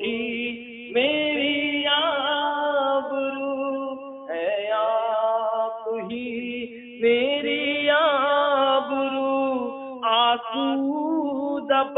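A man singing a naat, a devotional song in praise of the Prophet in Urdu-Hindi, in long ornamented phrases with short breaks every few seconds, over a steady low drone.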